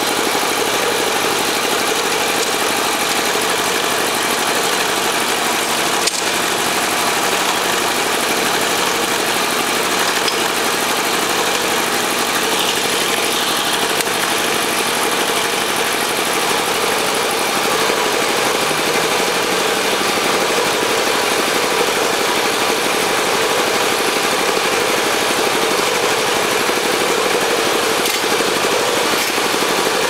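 CQP1 ultrasonic bottle washing machine running: a loud, steady mechanical noise with a constant high hiss and a few faint steady tones, and an occasional light click.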